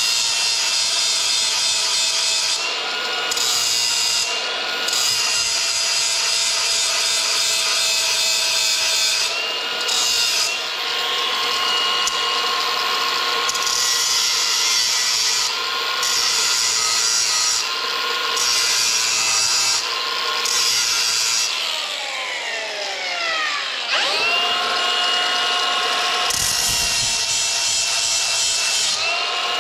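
Cordless angle grinder running with its wheel against the carbide teeth of a stump grinder's cutter wheel, sharpening them. The grinding noise breaks off briefly several times as the wheel moves from tooth to tooth. About 22 seconds in the motor spins down, and it starts again two seconds later.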